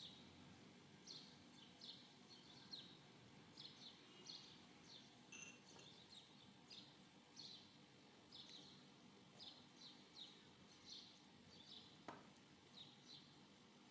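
Faint bird chirping: short, high chirps, often in pairs, repeating about once or twice a second over a low steady hiss. One soft knock near the end.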